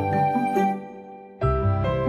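Soft instrumental background music, fading down about halfway through and starting up again about a second and a half in.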